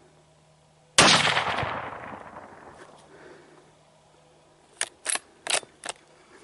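A single rifle shot about a second in, very loud and sudden, its echo rolling away over about two seconds. Near the end come four short, sharp clicks in quick succession.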